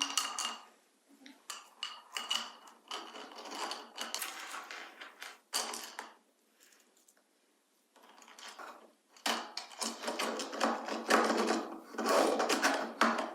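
3D-printed plastic dragons and egg shell being handled and fitted back together: irregular light clicks, taps and rustling, with a quiet pause in the middle.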